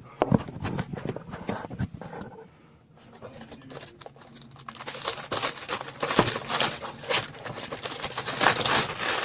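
A gift being unwrapped: a few handling clicks and rustles at first, then from about halfway in, a run of crinkling and tearing as the wrapping is pulled open.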